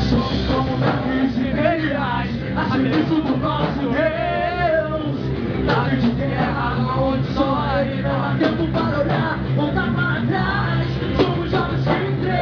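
A rock band playing a song with singing over guitar, bass and drums.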